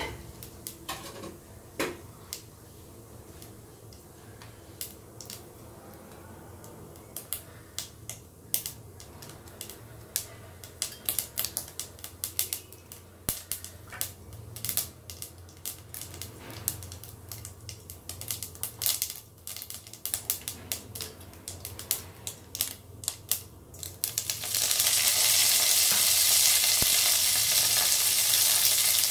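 Mustard seeds popping and crackling in hot oil in a stainless steel pot, sparse sharp clicks that grow quicker and denser. After about 24 seconds curry leaves go into the oil and a loud, steady sizzle takes over.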